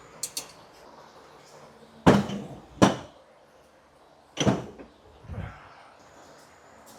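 A series of knocks and bangs, like doors or cabinet fronts being shut: two loud bangs a little over two seconds and about three seconds in, another loud one about four and a half seconds in, and lighter knocks near the start and about five and a half seconds in.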